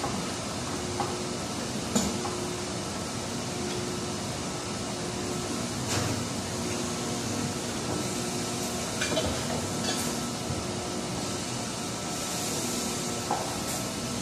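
Plastic injection-moulding machinery running with a steady hum, broken by a few short metallic knocks and clanks, the sharpest about two seconds in.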